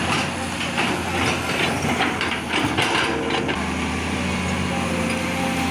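Excavator's diesel engine running steadily, with a quick run of clanks and knocks from the working machine through the first few seconds.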